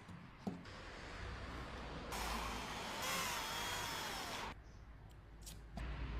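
3D printer running, its motors whining with a pitch that rises and falls as the head moves, louder from about two seconds in until about four and a half seconds.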